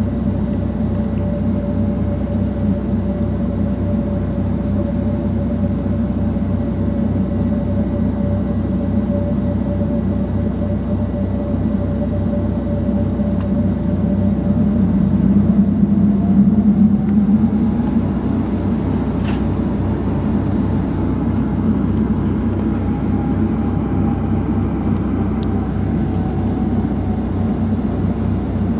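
Cabin noise of a Boeing 757-200 on the ground before taxi: a steady low drone with a thin whine that glides up in pitch about halfway through, as the noise briefly swells.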